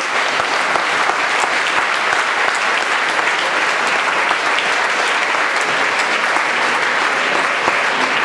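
An audience and the officials on stage applauding, a steady, sustained round of clapping.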